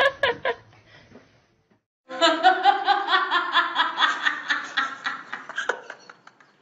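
A person laughing: after a short pause, a long run of quick, high-pitched 'ha' pulses starts about two seconds in and lasts some four seconds.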